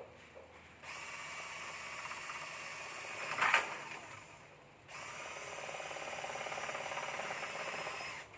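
A small electric motor running in two spells of about four and three seconds, with a sharp louder burst partway through the first.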